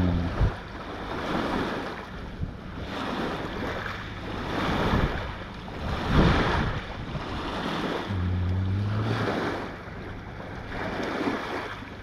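Lake water lapping on the shore with wind on the microphone, the noise swelling and fading every second or two over a steady low hum. A short low steady tone sounds about eight seconds in.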